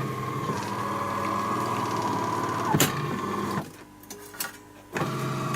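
AEG Electrolux coffee machine humming steadily as it brews and dispenses coffee, now working normally. There is a click in the middle, then it stops for about a second and starts again.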